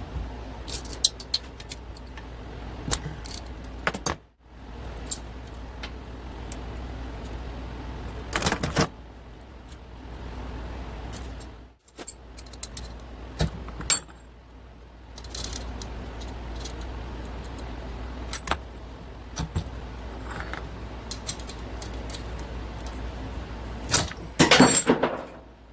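Metal hand tools clinking and rattling against a motorcycle engine's cylinder head during teardown, scattered clicks with a louder clatter about eight seconds in and another near the end, as the rocker arms are loosened. A low steady hum sits underneath.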